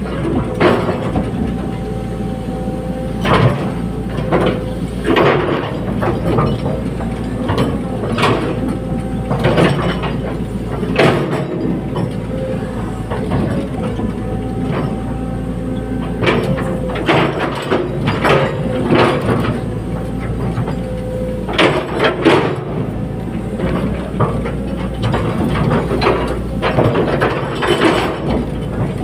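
Caterpillar 320D hydraulic excavator at work: the diesel engine runs steadily under a constant hydraulic whine, with irregular metallic clanks and knocks from the machine's bucket, boom and tracks as it moves material.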